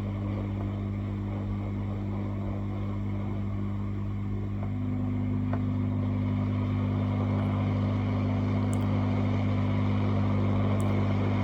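Hot air rework station blowing steadily onto a phone's charging port to melt the solder paste beneath it: a steady fan hum that steps up slightly in pitch about five seconds in and grows a little louder.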